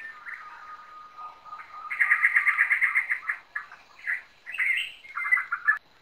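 Rainforest birds calling: a long level whistle, then about two seconds in a fast run of repeated notes, about ten a second, followed by several short calls.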